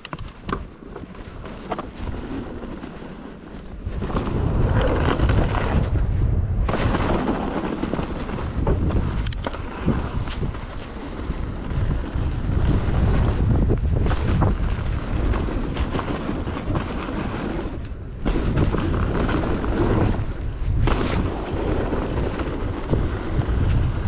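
Mountain bike descending a dirt trail at speed: tyres rumbling over the dirt with scattered knocks from the bike, and wind buffeting the microphone. Quieter at first, it turns loud about four seconds in.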